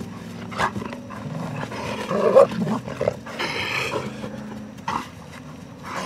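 A Belgian Malinois growling steadily in a low rumble while tugging on a bite toy, with a louder outburst about two seconds in and a few sharp knocks from the tug and scuffle.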